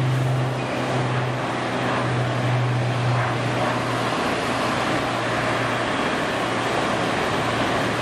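Steady jet engine noise from a Boeing 777-300ER's GE90 turbofans, with a low hum that drops in level about four seconds in.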